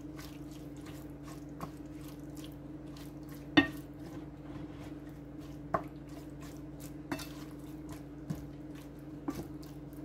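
A utensil stirring collard greens in a steel pot: scattered clinks and knocks against the pot, about six in all, the loudest about three and a half seconds in, over a steady low hum.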